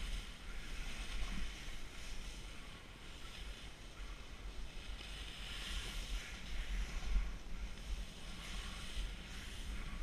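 Snowboard sliding and carving over snow, a hiss that swells and fades several times, with wind rumbling on a helmet-mounted action camera.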